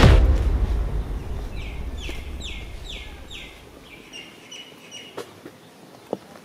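A loud closing hit of dramatic music fades out as a low rumble over the first three seconds. A bird then calls: about five quick downward-slurred notes, followed by a few short even-pitched notes.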